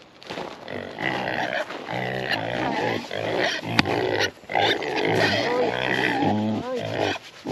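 A group of Idaho pasture pigs grunting steadily up close, with a short break about halfway through.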